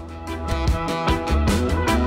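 Background music with guitar and drums, a steady beat.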